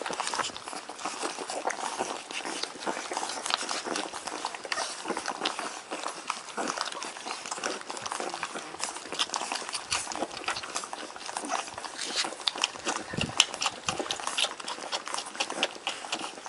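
A litter of Shar-Pei puppies nursing: a continuous busy patter of wet suckling and smacking clicks, mixed with small puppy whimpers.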